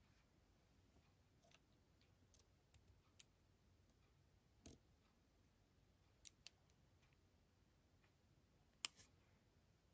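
Near silence broken by scattered light clicks and taps of small hard objects being handled, about half a dozen in all, with the sharpest click near the end.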